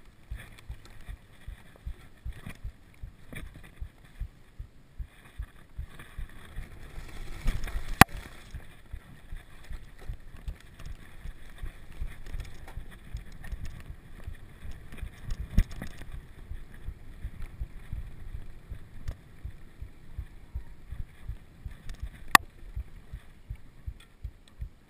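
Mountain bike riding over a rough dirt trail: a steady rumble and rattle from the tyres and frame, with three sharp knocks standing out, the loudest about a third of the way in.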